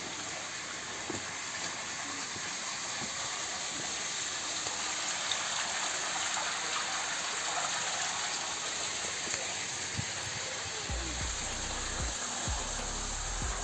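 Steady rush of water from the Sulaimaniyah spring, a high-flow spring, running through its stone channel. It grows slightly louder toward the end, when a low rumble comes in.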